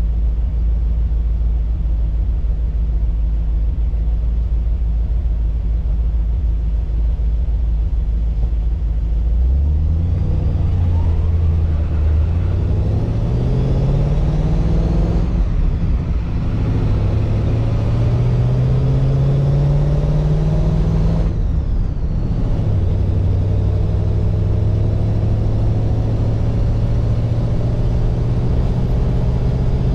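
1948 Mercury's 239 cubic inch flathead V8 with a low, steady rumble at first, then pulling away about ten seconds in: the engine note climbs, drops at two gear changes of the three-speed manual, and settles into a steady, slowly rising note in top gear.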